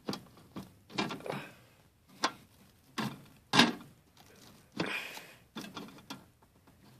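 Handling noise from a glass terrarium and its plastic vented lid: about eight short knocks, clunks and scrapes, spaced irregularly.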